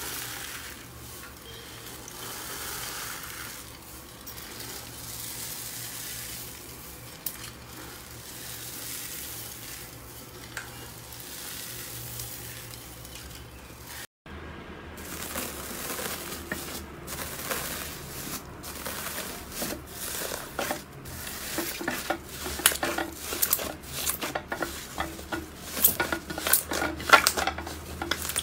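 Slime being squished and stretched by hand, making a soft, sticky crackle. About halfway through it cuts to another clip, where the crackling pops come thicker and sharper.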